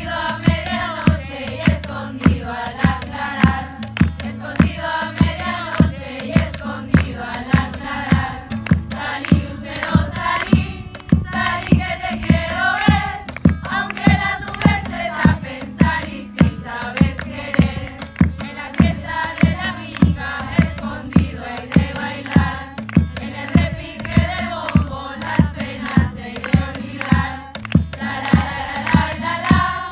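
Choir of women singing a song in Spanish together, accompanied by acoustic guitar over a steady, regular beat.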